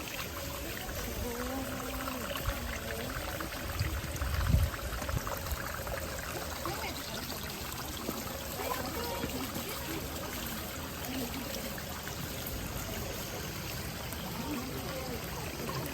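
Steady rush of running and falling water from a waterfall and its stream. A brief low thump comes about four and a half seconds in.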